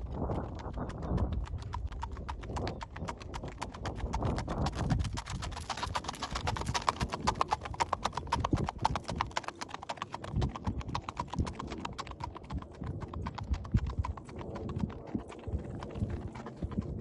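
Hoofbeats of a paint horse ridden along a hard road, a quick, even clip-clop. It is loudest about midway.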